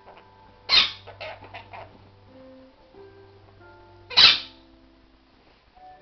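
Two short, sharp animal cries about three seconds apart, from the pets playing, over background music with held notes.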